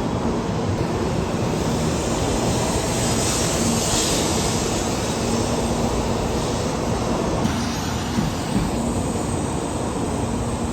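Shinkansen bullet train running past at speed: continuous train noise that swells about four seconds in and eases off after about seven seconds.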